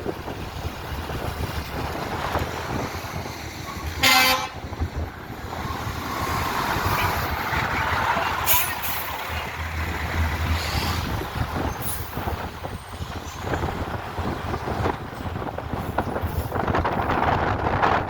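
One short blast of a fire truck's air horn about four seconds in, over the running of a heavy truck engine and street noise, with wind on the microphone.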